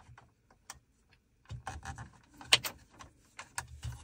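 Scattered light clicks and rustles of a charging cable being fed through a slot in a Porsche Cayenne center-console trim, with the loosened trim piece being handled. Almost quiet for the first second and a half; the sharpest click comes about two and a half seconds in.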